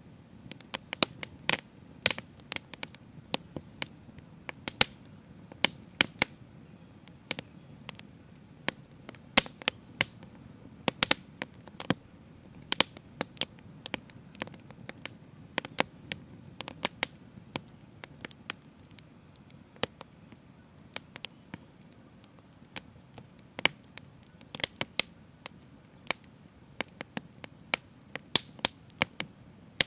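Open fire crackling: irregular sharp pops and snaps, several a second at times, over a steady low rush of burning flames.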